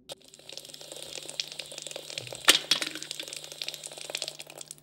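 Dense crackling and popping, with one sharp, loud crack about halfway through, over a low steady hum.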